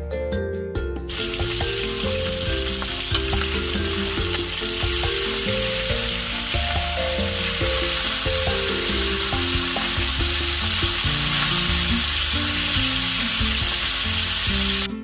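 Chicken pieces frying in hot oil, a steady loud sizzle that starts about a second in and cuts off suddenly near the end. Background music plays underneath.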